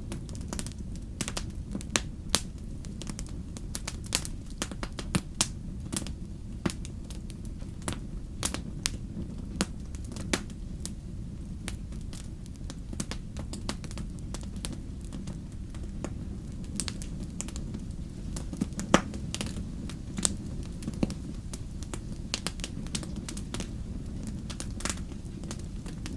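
Campfire crackling: irregular sharp pops and snaps, a few of them louder, over a steady low rumble of burning.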